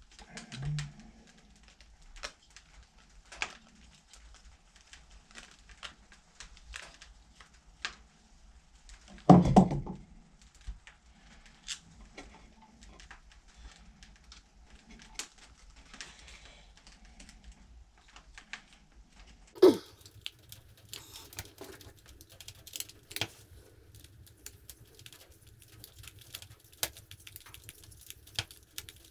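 Small scattered clicks and taps of hands working wire through a plastic in-line lamp switch. There is a dull thump about nine seconds in and a sharp knock near twenty seconds, after which a faint low hum sits underneath.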